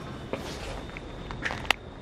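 Footsteps with a few sharp clicks and knocks, the loudest a single sharp click near the end, over a steady faint high-pitched hum.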